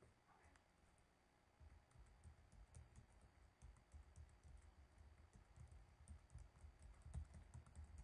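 Faint typing on a computer keyboard: a quick, uneven run of key clicks starting about a second and a half in, as a web address is typed.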